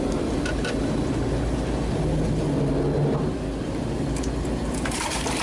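Fishing boat's engine running steadily with a low hum, slightly stronger for a moment past the middle. A few short clicks or light splashes come near the end.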